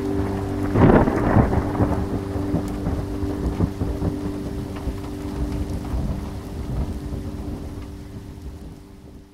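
A thunderclap about a second in, then rolling rumble and rain noise that slowly fade away. A few steady low held notes sound underneath.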